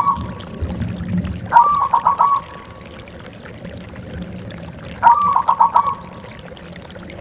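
Zebra dove (perkutut) singing: two call phrases about three and a half seconds apart, each a held opening note followed by a quick run of short notes, over a low background rumble.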